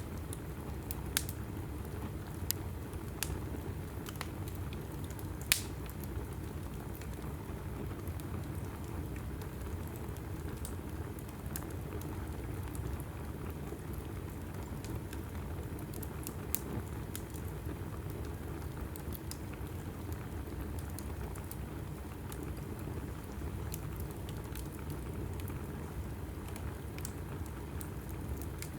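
Wood fire burning in a fireplace: a steady low rush of flames with scattered sharp crackles and pops, the loudest about five and a half seconds in.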